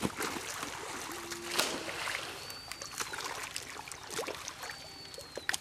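Wet splashing and slapping as a fishing net is dragged through mud and shallow water, the loudest splash about a second and a half in. A thin high whistling call sounds three times, about two seconds apart.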